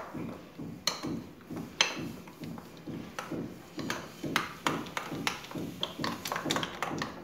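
A thick green masala paste of coriander, green chillies and gram flour being mixed by hand in a small glass bowl: a steady run of soft strokes, about three a second, with a few sharper clicks now and then.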